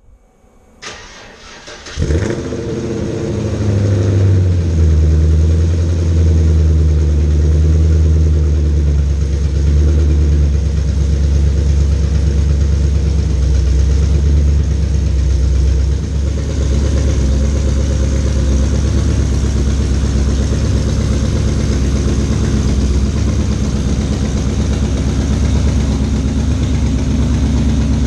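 A 2012 GMC Sierra's 6.2-litre V8 starting about two seconds in after a click, then running steadily at idle. The owner says it sounds terrible and has not found the fault; the valve springs checked out fine.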